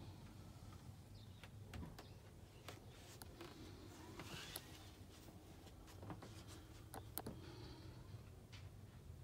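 Near silence: room tone with a steady low hum and scattered faint clicks and rustles.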